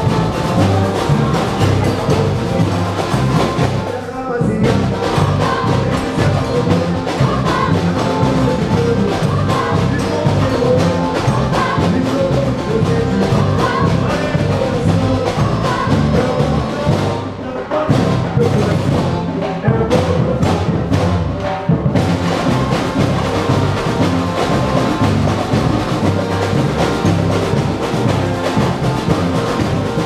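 Live samba-style carnival percussion band with large bass drums playing a steady beat, with singing over it. The higher percussion drops out for a few seconds past the middle while the low drums keep going.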